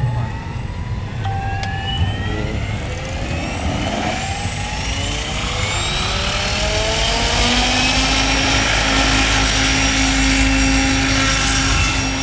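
Radio-controlled helicopter spooling up on the ground: its motor and rotor whine rises steadily in pitch and grows louder. About seven seconds in, a deeper steady hum settles in as the rotor comes up to speed, and the helicopter lifts off near the end.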